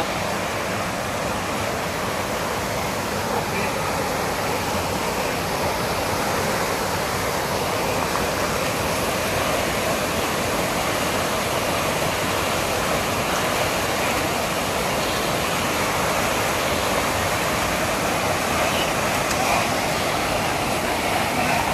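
Fast-flowing snowmelt-fed mountain river rushing, a steady even noise of water.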